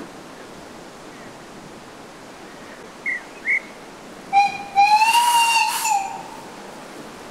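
Two short, high blasts on a guard's whistle give the right-away, and a narrow-gauge steam locomotive's whistle answers with a short toot and then a longer blast of about a second as the train prepares to depart. A steady rush of wind runs underneath.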